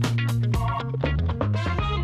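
A TV show's opening theme music with a steady beat and a deep bass line.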